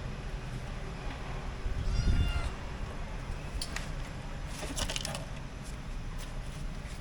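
A kitten meowing once, a short high cry about two seconds in, with a low bump at the same moment and a few scratchy rustles shortly after.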